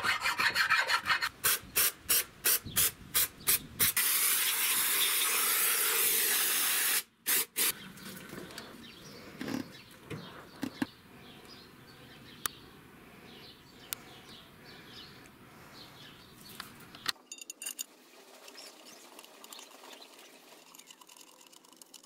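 Hand file rasping along the flange of an aluminium oil pan, about three strokes a second for the first few seconds. Then a steady hiss lasts about three seconds and cuts off abruptly, and after that only faint clicks and light knocks are heard.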